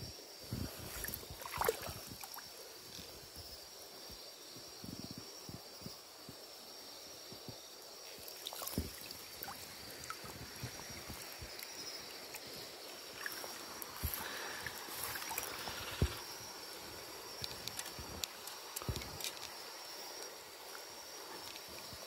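Hand dip net swept through shallow river water and lifted out: sloshing, splashing and dripping, with scattered small knocks and clicks from the net frame and wading, busiest a little past the middle.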